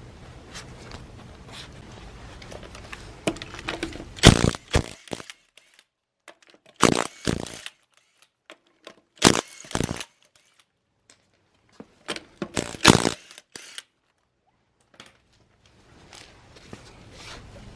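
Four short bursts of knocks and clatter, a few seconds apart, broken by stretches of dead silence.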